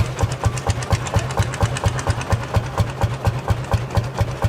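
Lanz Bulldog tractor's single-cylinder two-stroke hot-bulb engine running slowly, with an even, regular beat of about four to five firing knocks a second.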